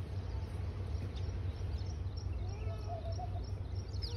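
Low, steady rumble of wind on the phone's microphone in an open vegetable plot, with a faint, wavering distant call about two and a half to three seconds in.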